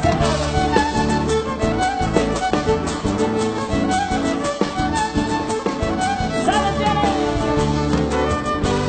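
Violin leading a lively instrumental chacarera medley, with sliding notes, over the accompanying band's steady bass and beat.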